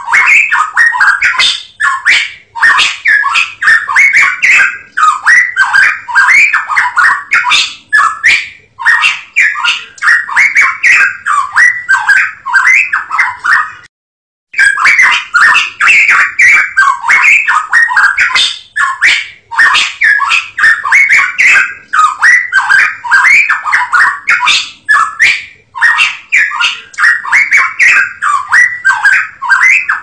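Cucak emas Papua songbird singing: loud runs of quick, rising-and-falling whistled and chattering notes, repeated phrase after phrase with short breaks and one clear pause about halfway through.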